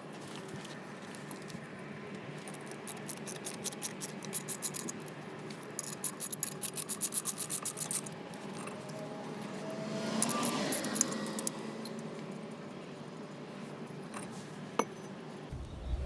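Rhythmic scraping strokes in runs, about six a second at their quickest, with a brief rising-and-falling whine about ten seconds in and a single click near the end.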